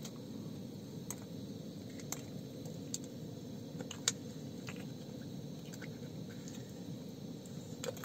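Steady low hiss of a portable gas stove burner running under a pot, with a handful of light clicks and taps from a glass jar and utensils being handled; the sharpest click comes about four seconds in.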